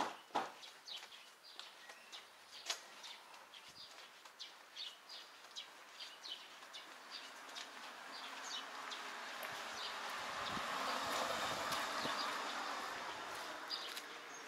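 Footsteps of a person walking on stone paving, short sharp steps about two a second. In the second half a broad rushing noise swells up and eases off again near the end.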